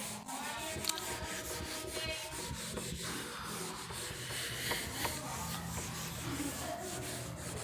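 Writing by hand on a surface: steady rubbing and scratching with many small ticks, over a low steady hum.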